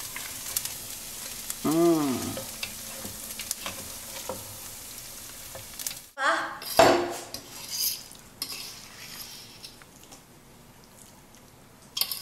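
Pot of beef stew sizzling as browned pumpkin and corn are stirred in, the spoon scraping and clicking against the pot. About two seconds in there is a short tone that rises and falls.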